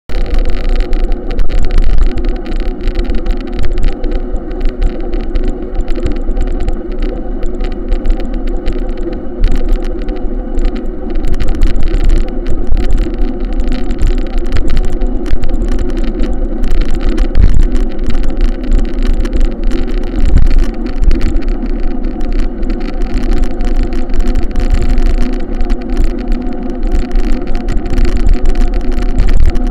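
A vehicle's engine running with a steady drone at constant speed, with a rough, uneven buffeting noise over it.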